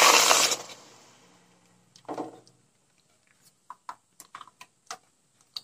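Thick palm-fruit pulp poured from a bowl into a warm non-stick kadai: a loud wet splash as the pulp lands, fading over about a second, then a softer thud about two seconds in and a run of small taps and clicks near the end.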